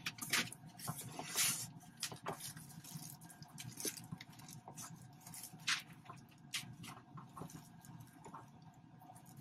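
Cardboard box flaps being pushed open and plastic-bagged yarn rustled as it is lifted out: scattered crinkles, scrapes and taps, busiest in the first two seconds and sparser after.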